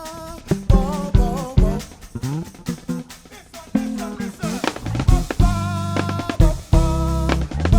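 Live band playing: drum kit with kick and snare hits over sustained bass-guitar notes, with a wavering melody line above.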